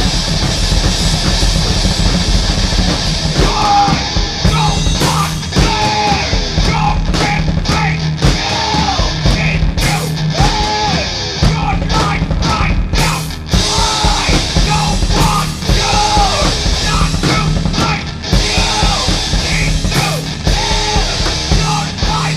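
Loud punk/metal-style rock music with a drum kit and guitar; shouted vocals come in about three and a half seconds in and carry on.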